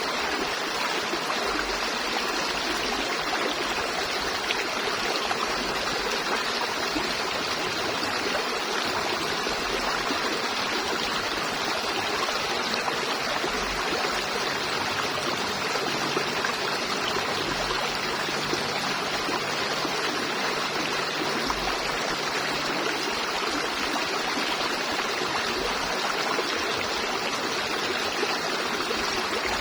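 River water flowing steadily over rocks, a constant rushing and gurgling.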